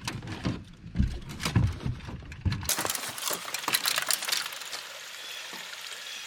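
Irregular knocks and thumps of a freshly netted bass and fishing gear being handled in a boat, then, after an abrupt change about two and a half seconds in, a steady hiss.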